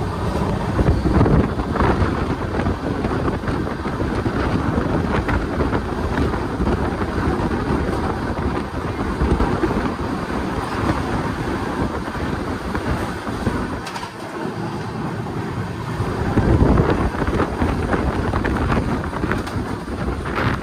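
Express passenger train running at speed: a steady rumble and rattle of wheels on the track, with rushing wind and rain noise, easing briefly about two-thirds of the way through.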